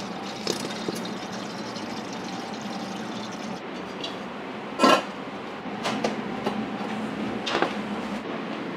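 Liquid poured from a plastic bottle into a stainless steel pot, over a steady rushing noise, with metal pot and lid clanks; the loudest clank comes about five seconds in, with lighter knocks around it.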